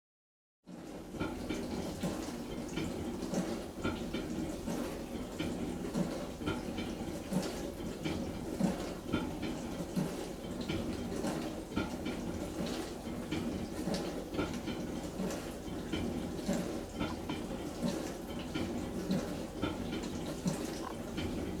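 Bauknecht BBC 3C26 dishwasher running its wash cycle: a steady rush of water spraying and splashing inside the tub, dotted with small irregular patters and clicks. It cuts in suddenly about half a second in.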